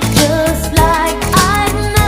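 A pop song playing: a singer's voice with a wavering melody over a steady beat.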